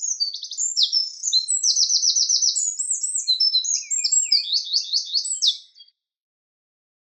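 Eurasian wren (Troglodytes troglodytes) singing one long, fast song of high trills and warbles, which stops about six seconds in.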